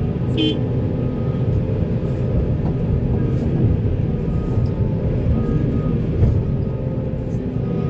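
Volvo 480 excavator's diesel engine running steadily, a deep continuous rumble, with a brief high chirp about half a second in.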